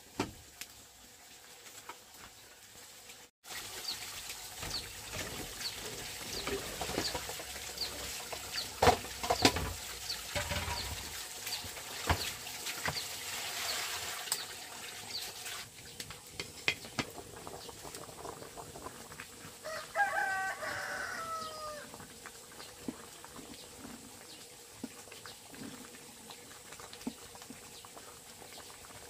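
A rooster crows once, about twenty seconds in. Before it, in the first half, come light regular ticks and a few louder knocks.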